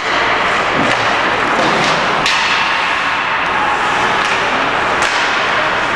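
Ice hockey play in a rink: sharp clacks of sticks and puck, several spread through, over a steady hiss of arena noise.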